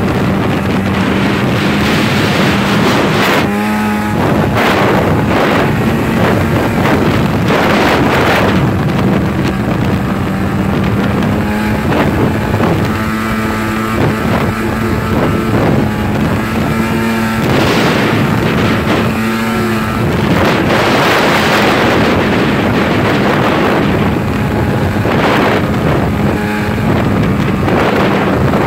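Snowmobile engine running steadily under way, its pitch shifting now and then with the throttle, with wind noise on the microphone.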